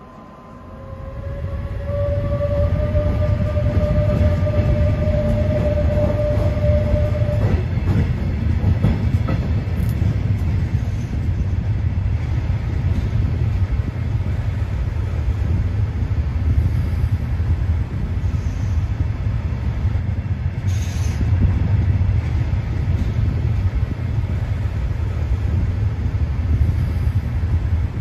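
Electric train with a Hector Rail locomotive standing at the platform during a brake test: a steady, loud low rumble sets in about a second in. A whine rises slightly over the first few seconds and stops about 7 s in, and a short hiss comes about two-thirds of the way through.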